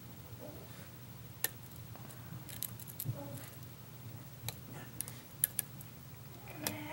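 Lock pick and tension wrench working the pins of a pin-tumbler challenge lock: scattered light metallic clicks and ticks, irregularly spaced, over a steady low hum. A brief pitched sound comes near the end.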